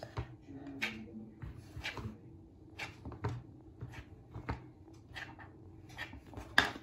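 Plastic Play-Doh knife cutting around a flattened piece of modelling dough on a wooden tabletop, its edge tapping the wood in light, irregular clicks, roughly two a second.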